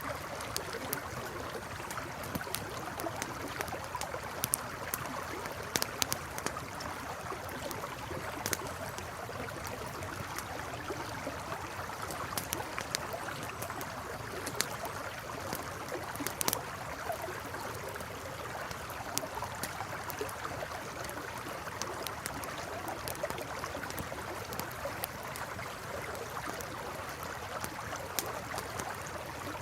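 River water flowing in a steady rush, with scattered sharp crackles and pops from a campfire.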